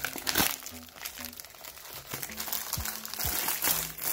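Plastic poly mailer envelope crinkling and crackling in irregular bursts as it is torn and pulled open by hand, with the sharpest crackle about half a second in. Faint background music with low held notes sits underneath.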